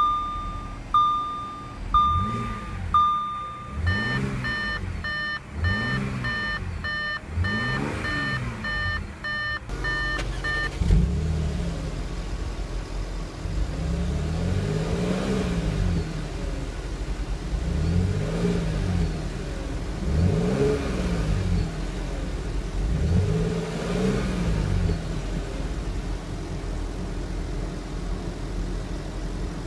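A 2014 Audi S4's supercharged 3.0-litre V6, just started, blipped several times inside the cabin while the dashboard warning chime beeps about once a second, then turns into a faster, higher chime. About ten seconds in, the sound shifts to the quad exhaust at the rear: the engine idles steadily and is revved several times, each rev rising and falling.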